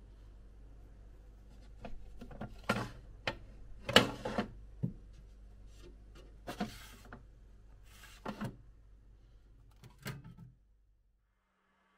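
Plastic food-storage containers knocking and clattering against glass refrigerator shelves as they are handled, in a string of sharp knocks and rustles over a low steady hum. All of it stops about ten and a half seconds in.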